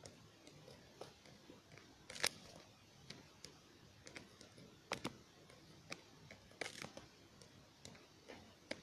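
Near silence broken by scattered faint clicks and taps from a handheld phone being handled and tapped, the clearest about two, five and nearly seven seconds in.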